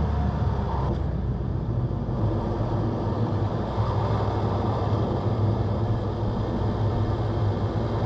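2017 Ford Escape's 2.0 EcoBoost turbocharged four-cylinder running, with an open-top airbox and K&N drop-in filter: a rising tone from the previous pull breaks off about a second in, then a steady low engine drone runs between pulls.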